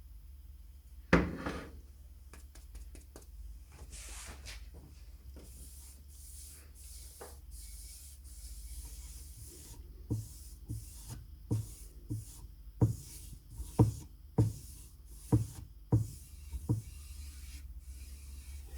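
A single loud knock, then several seconds of short rubbing or scraping strokes, then a run of about eleven knocks spaced roughly half a second to a second apart.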